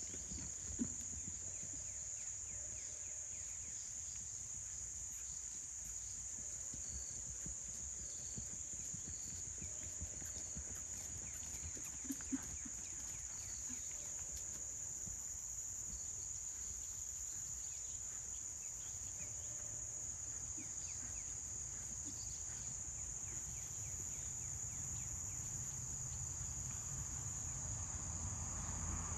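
A steady, high-pitched insect chorus trilling without a break, over a low rumble, with a couple of faint knocks near the start and about twelve seconds in.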